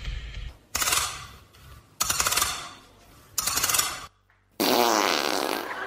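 Sound effects in a dance track: three sudden clattering hits about a second and a half apart, each fading out. After a half-second cut to dead silence, a wavering pitched sound starts.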